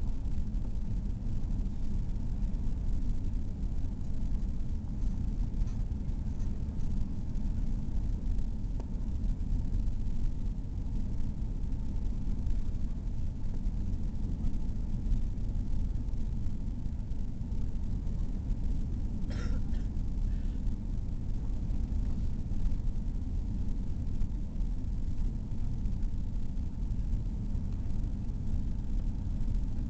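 Steady low rumble of cabin noise inside an Airbus A340-600 on approach: its four Rolls-Royce Trent 500 engines and the airflow over the fuselage.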